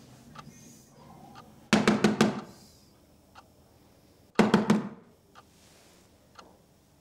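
Two quick runs of knocking on a door, each a rapid string of four or five knocks, about three seconds apart. Between them a wind-up alarm clock ticks faintly about once a second.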